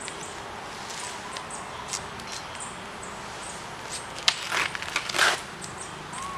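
Longswords clashing once with a sharp clack about four seconds in, followed by two short scuffling bursts as the fencers engage, over a steady low hiss.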